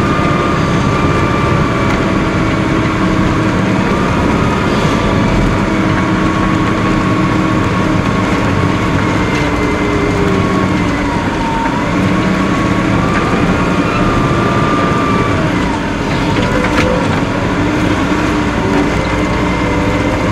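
Caterpillar IT28 wheel loader's diesel engine running steadily under load as it plows snow, heard from inside the cab, with whining tones that drift slowly up and down in pitch.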